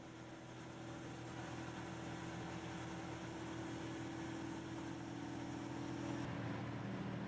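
Engine of a heavy wheeled transporter running steadily as it rolls slowly past. A steady hum that grows slowly louder and shifts in pitch about six seconds in.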